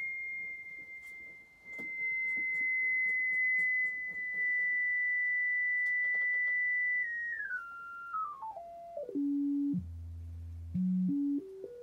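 Pure sine test tone from a function generator, holding just above 2,000 hertz for about seven seconds. It then steps down in pitch in a staircase of small jumps to a low buzz around ten seconds in, and steps back up as the frequency is dialed down and then raised again.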